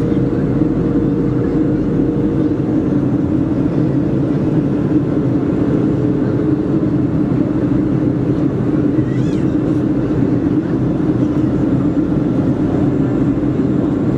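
Steady cabin noise of a Boeing 737-400 during the descent, heard from an economy seat: the drone of its CFM56-3 turbofans and the airflow around the fuselage. A faint steady hum fades out after about three seconds.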